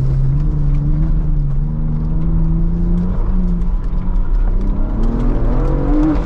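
Ford Bronco Raptor's 3.0-litre twin-turbo V6, heard from inside the cabin, pulling with its pitch rising, dipping about three seconds in, then climbing again near the end. Light knocks and rattles from the body and suspension come through as it drives over rough, bumpy dirt.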